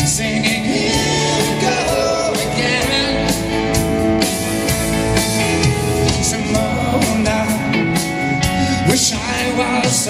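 Live pop-rock band playing through a large arena PA, a piano and drums carrying the song between sung lines, heard from the audience with hall echo.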